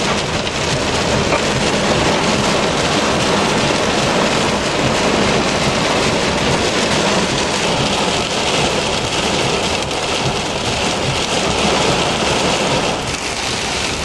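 Heavy wind-driven rain pelting a truck during a severe thunderstorm: a loud, steady, dense hiss of rain with wind gusts shaking the vehicle. It eases slightly near the end.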